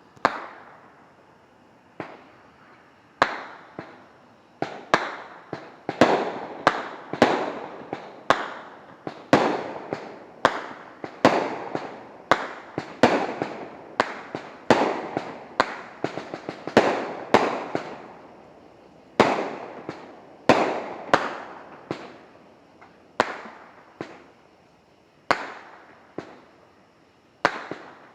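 Liberty Bell brand consumer fireworks going off: a long run of sharp bangs, roughly one or two a second, each trailing off in a ringing echo, and closest together in the middle stretch.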